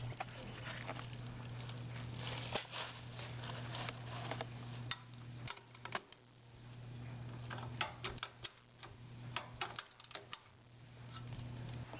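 Scattered light clicks and taps of hand tools and bolts as a support leg is fitted to a portable generator's frame, over a faint steady low hum.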